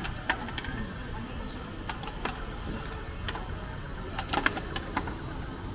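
Busy night-market street ambience: a steady low rumble of crowd and traffic, with scattered sharp clinks and clacks, several of them close together about four seconds in.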